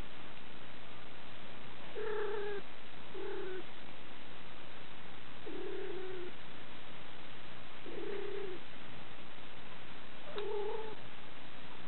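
Domestic cat giving five short, low, level-pitched mewing calls, each under a second and spaced a couple of seconds apart, as it is stroked under the chin: contented sounds from a relaxed cat.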